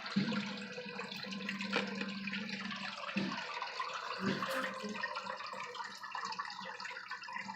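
Steady trickling water in an aquarium tank, with a couple of soft knocks about three and four seconds in.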